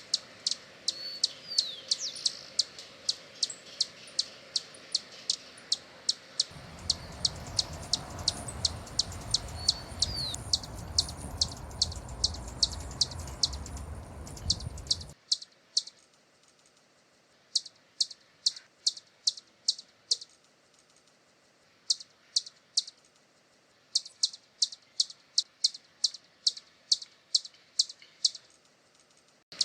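Hummingbird giving a rapid series of sharp, high chip calls, about three to four a second, with a few brief pauses in the second half. A low rumble of noise sits underneath for several seconds in the middle and cuts off suddenly.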